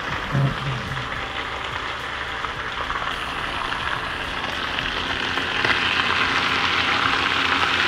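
Cubed chicken frying in a skillet on a hot stove burner: a steady sizzling hiss that grows a little louder about five and a half seconds in.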